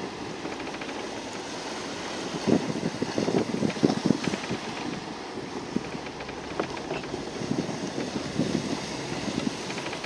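Wind buffeting the microphone in uneven gusts, over the wash of water along a sailboat under way.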